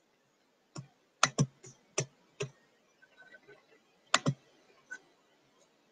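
Sharp clicks and taps on a computer, about nine in all at irregular spacing, the loudest a quick pair about four seconds in.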